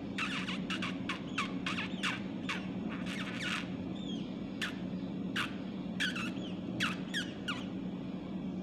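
A caged bulbul giving a rapid string of short, sharp chirps, each sweeping down in pitch. They come thick and fast at first and more sparsely after about three and a half seconds, over a steady low hum.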